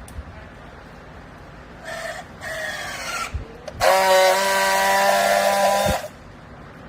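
Clothes baling press running: a whine that falls in pitch about two seconds in, then a loud steady mechanical whine that starts about four seconds in and cuts off abruptly two seconds later.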